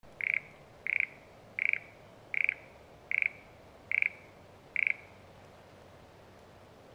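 A frog croaking seven times at an even pace, about one call every three-quarters of a second, in the first five seconds. Each call is a short, rattling croak.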